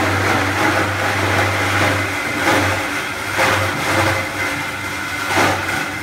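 Electric onion grinder running, a low motor hum with a grinding rasp; the hum is steady at first and turns uneven after about two seconds, with three brief louder knocks in the second half.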